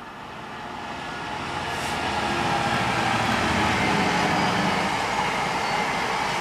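GBRf Class 66 diesel locomotive 66798 approaching and passing, its two-stroke V12 engine and wheel noise growing steadily louder over the first two or three seconds. Then the empty aggregate wagons rattle past on the rails.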